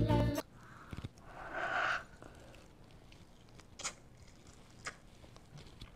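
Intro music cuts off just after the start, followed by a person biting into and chewing a Spam musubi: a short muffled mouth sound about a second and a half in, then quiet chewing with a few faint wet mouth clicks.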